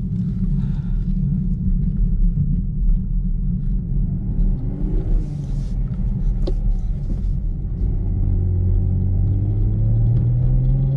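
Chevrolet Camaro heard from inside the cabin while rolling at low speed: a steady low engine and road rumble. In the last few seconds the engine note rises gently as the car picks up a little speed.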